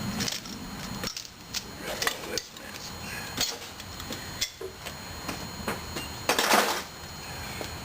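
Metal tools and parts clinking and knocking in scattered taps, with a louder half-second noise about six and a half seconds in.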